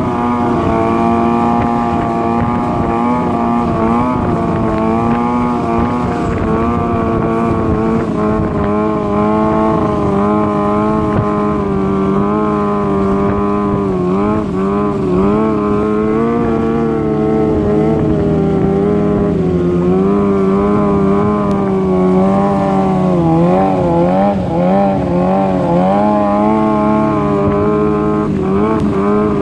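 Motorcycle engine running steadily at high revs, its pitch wavering up and down a little with the throttle, over a rushing road noise.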